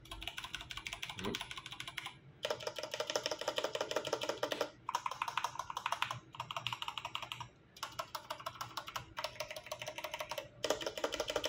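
IQUNIX L80 Formula mechanical keyboard with Cherry Brown switches being typed on fast: a rapid clatter of keystrokes in several runs, broken by brief pauses.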